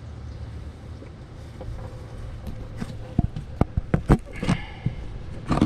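A low steady rumble, then from about three seconds in a run of sharp knocks and clatters: handling noise as the camera under the car is moved.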